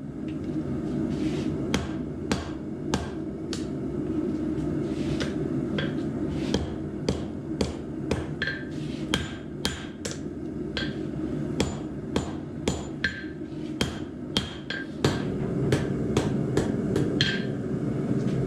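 Hammer blows on a hot 52100 steel knife blade against an anvil, about two a second at an uneven pace, some with a short metallic ring, while the bladesmith refines the blade's profile and tang. A steady low rushing noise runs underneath.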